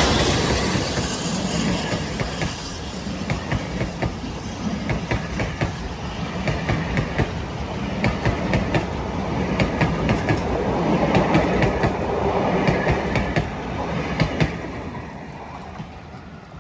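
A passenger train rolling past, the wheels clicking in quick pairs over the rail joints, the sound fading away near the end as the train draws off.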